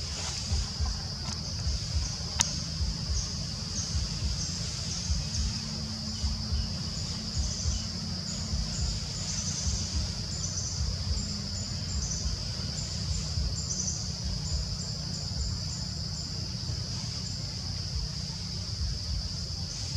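Steady high-pitched insect drone, with a run of short high chirps joining it from about eight seconds in, over a low rumbling noise. A single sharp click a couple of seconds in.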